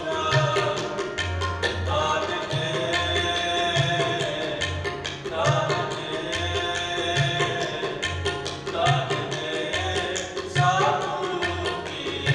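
Sikh kirtan played live: two harmoniums sustain the melody over a tabla, whose bass drum gives repeated deep strokes, while a man sings.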